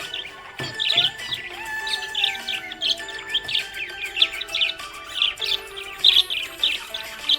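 Budgerigars chirping and twittering in quick, overlapping bursts, several birds at once, with no pause.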